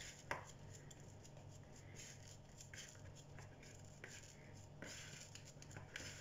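Faint scraping and rustling of a spatula working a thick, grainy peanut-and-coconut dough around a bowl, with a light click just after the start, over a low steady hum.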